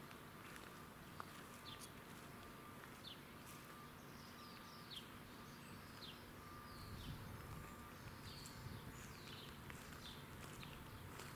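Faint birdsong: scattered short chirps, each dropping quickly in pitch, over quiet outdoor ambience.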